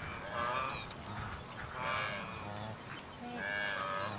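Wildebeest calling: three drawn-out calls, each about a second long, roughly a second and a half apart.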